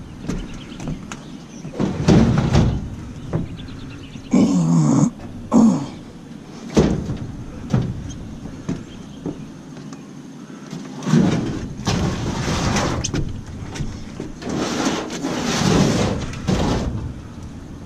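A discarded clothes dryer being handled and loaded into a vehicle: a series of thumps, clanks and scrapes, with two short squeals about four and five and a half seconds in and a longer stretch of scraping near the end.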